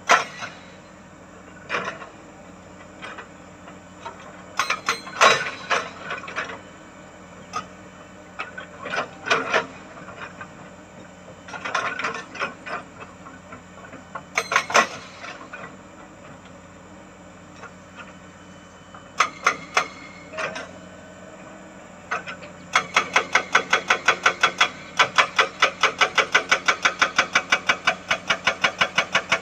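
Excavator-mounted hydraulic rock breaker working on rock: scattered clanks and knocks of the steel tool against stone over a steady engine hum. About 23 seconds in, the breaker starts hammering, a fast even run of about seven blows a second.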